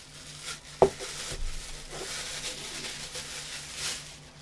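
Juicer parts and their cardboard and plastic packaging being handled: light rustling, with one sharp knock about a second in.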